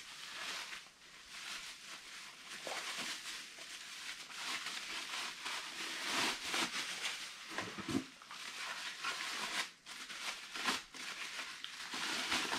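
Bubble wrap and a plastic bag crinkling and rustling in the hands as they are unwrapped from a metal router base. The crackling is irregular, in uneven handfuls.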